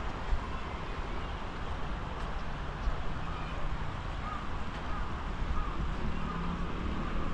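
Steady street ambience of passing traffic and wind, with a crow cawing faintly a few times about four to six seconds in.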